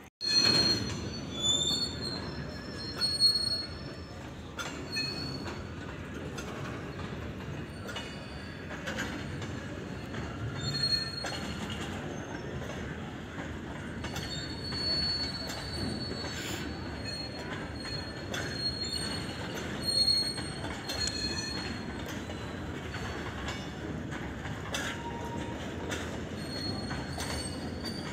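Train wheels rolling on the rails with a steady rolling noise, squealing in high-pitched tones that come and go, and occasional sharp clicks.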